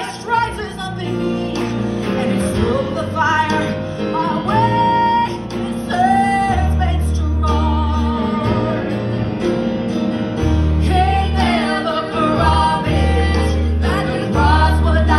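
Women singing a gospel worship song over live band accompaniment, amplified through the church loudspeakers, with a deep bass line that grows stronger about halfway through.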